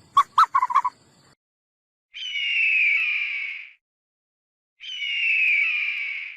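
An animal calling twice: two long, harsh calls about a second and a half each, the pitch sliding slightly down, with a few clicks and a short quick rattle in the first second.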